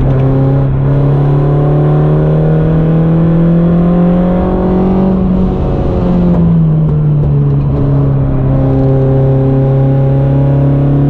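Modified Peugeot 106 Quicksilver's four-cylinder engine heard from inside the cabin under full acceleration, revs climbing for about five seconds. About five and a half seconds in the revs break and drop, an upshift, and the engine pulls on at high revs over a low road rumble.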